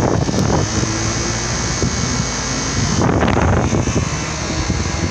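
Outdoor heat pump condenser unit running, its fan and compressor making a steady rushing hum, with a brief louder rush about three seconds in.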